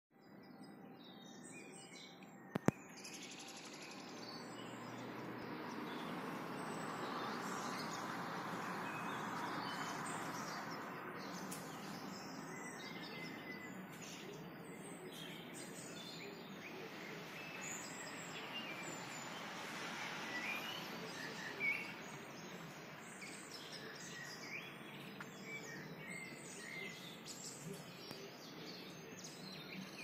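Several birds chirping and singing, short calls scattered throughout, over a steady background hum of distant noise that swells and fades in the first half. A single sharp click sounds near the start.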